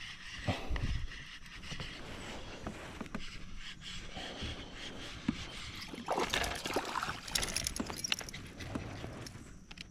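Irregular knocks, scrapes and small water splashes around a fishing kayak as a small shoal bass is brought in, with a few thumps near the start and a busier run of clicks and splashing from about six seconds in.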